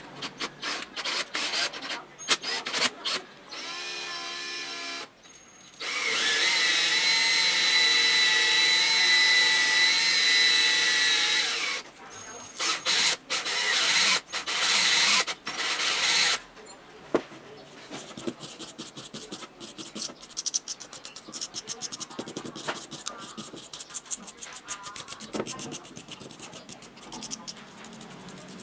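Cordless drill spinning a jigsaw motor armature, its motor giving a steady whine for about six seconds, with sandpaper rubbing on the copper commutator to clean it. Then come a few short bursts from the drill, and after that small clicks and rubbing as the motor parts are handled.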